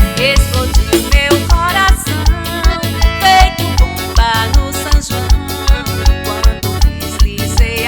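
Forró music with a steady bass beat about twice a second under a keyboard melody with bending, gliding notes.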